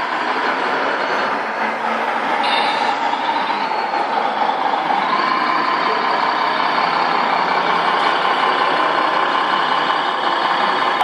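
1:14 scale RC model truck running: a steady mechanical sound with a whining tone that steps up slightly about five seconds in.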